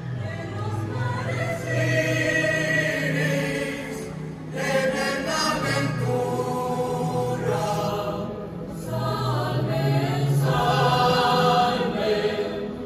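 A choir sings a hymn: several voices hold notes in long phrases, with short pauses about four and a half and eight and a half seconds in.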